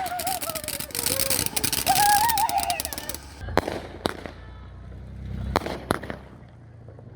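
Fireworks crackling rapidly for about three seconds, with voices shouting over them, then four separate sharp pops.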